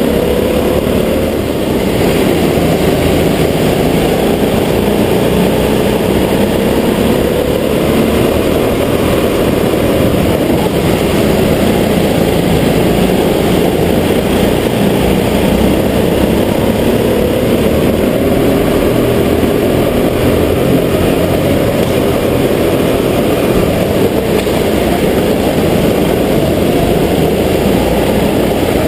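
Go-kart engine running at racing speed, with its pitch rising and falling a few times as it accelerates out of corners and backs off into them, and other karts' engines running alongside.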